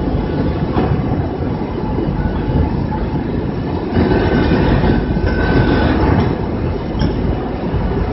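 Two-axis fettling grinder working on a metal casting: a loud, steady grinding rumble that swells about halfway through, with a faint high whine.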